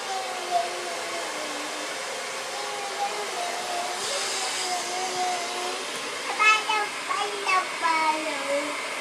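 Hair dryer blowing steadily, with a slowly wavering pitched tone over the airflow and a few short, high vocal sounds about two-thirds of the way in.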